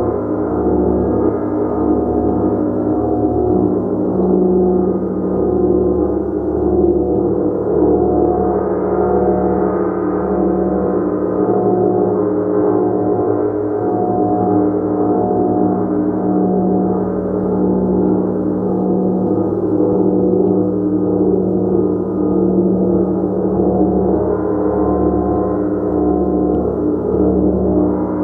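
A gong played continuously, a steady, sustained wash of many ringing overtones with individual tones swelling and fading within it.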